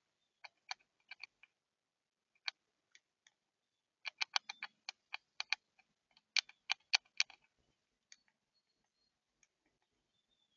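Birds pecking at a feeder: irregular sharp taps, a few at first, then a quick run of them in the middle, thinning out near the end.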